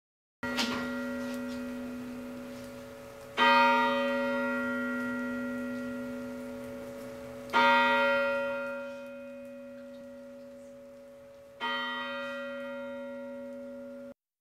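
A large bell tolling four times, about four seconds apart, each stroke ringing on and slowly fading; the last ring is cut off abruptly.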